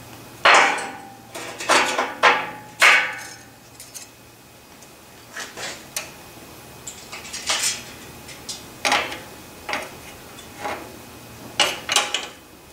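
Heat-blued steel parts clanking against a short steel pipe as they are dropped into it and worked about inside, with a loud clank about half a second in and a run of lighter metallic knocks and clinks after.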